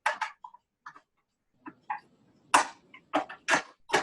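A series of short, irregular plastic clicks and knocks as refrigerator vent and cover parts are handled and fitted back into place, the loudest about two and a half seconds in.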